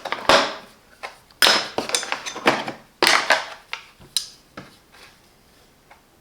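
Screwdrivers being handled against a plastic tool case: a run of sharp clicks and knocks with short scrapes, thinning out near the end.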